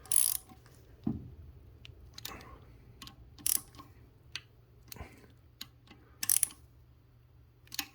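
Socket-wrench ratchet clicking in short bursts, with scattered ticks and light knocks, as a BMW engine's aluminium bed-plate bolt is turned a further 90 degrees past snug torque (torque-to-yield angle tightening).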